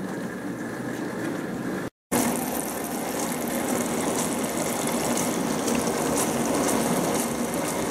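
Hotpoint Aquarius Plus FDW70 dishwasher filling: a steady rush of water coming in through its inlet chamber at the start of the wash cycle. The sound cuts out briefly about two seconds in.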